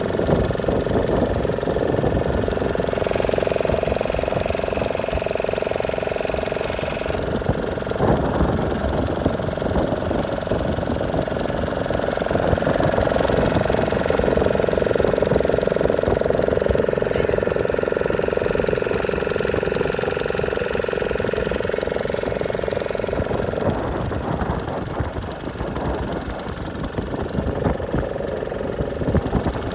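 Motorboat engine running steadily, with a constant hum that dips for a moment about eight seconds in and again near the end.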